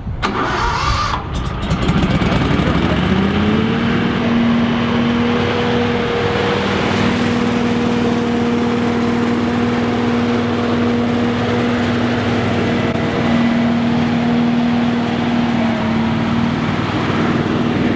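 Hurricane Z3000 stand-on leaf blower's gas engine revving up, rising in pitch over about two seconds, then running steadily at full throttle with a loud hiss over the engine note.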